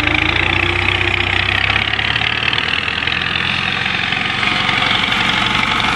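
Al-Ghazi tractor's diesel engine running steadily while the tractor drives past, dragging its lowered rear blade through loose sand. The engine's low note shifts about two seconds in.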